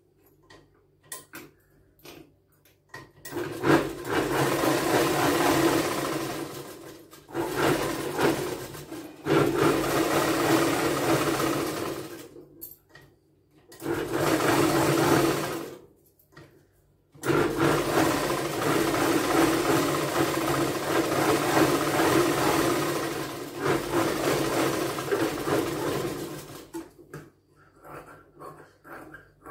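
Electric-motor-driven sewing machine stitching a blouse sleeve seam in five runs, stopping briefly between them. The first run starts about three seconds in and the last ends near the end, with a few light clicks before and after.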